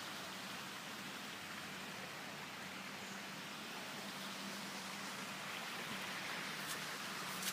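Steady rush of flowing floodwater, with a faint low hum underneath and a couple of sharp clicks near the end.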